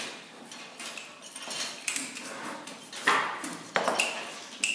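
Steel pipe and metal threading tools clanking and knocking irregularly, a few of the knocks ringing briefly with a high metallic ping.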